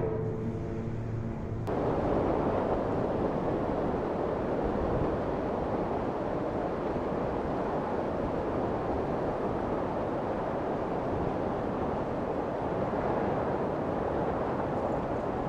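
A steady, even rushing noise starts abruptly under two seconds in and runs on unchanged, with no impacts or distinct events in it, like wind on a microphone. Before it, a brief pitched sound.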